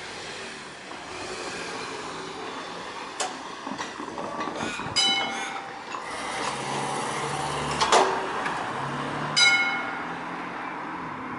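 Cars driving across a railway level crossing, their tyres clunking over the rails with several sharp metallic knocks, the loudest about eight seconds in, over the passing engine noise.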